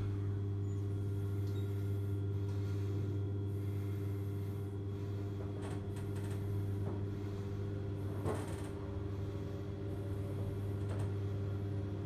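Kone MonoSpace machine-room-less traction lift car travelling upward, heard inside the car: a steady low hum with a few faint clicks along the way.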